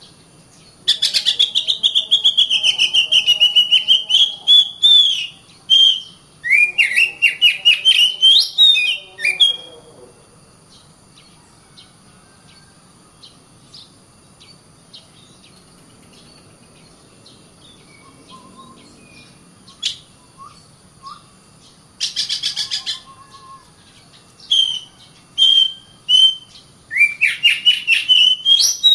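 Oriental magpie-robin (kacer) singing in bursts of rapid, high, trilling phrases, with a long pause in the middle before it starts again near the end.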